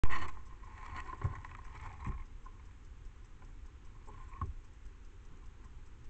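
An animal feeding and rummaging at a food dish right by the microphone: a loud knock at the very start, then scattered scratches and soft knocks, three of them clearer, over a faint steady hum.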